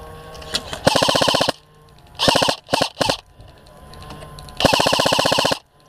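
Airsoft rifle firing on full auto in several bursts: a burst about a second in, two or three short bursts around the middle, and a longer burst near the end, each a rapid, even rattle of shots.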